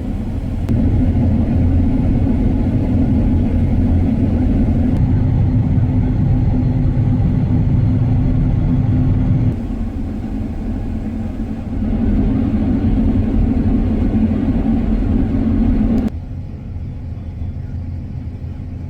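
Combine harvester running while cutting wheat with a 45-foot MacDon draper header: a steady low machine rumble. Its loudness and tone shift abruptly a few times.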